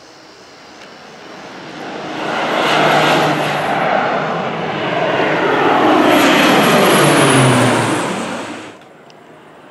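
Crop-dusting airplane flying low overhead: engine and propeller noise builds, swells twice, and falls in pitch as it passes, then cuts off suddenly near the end.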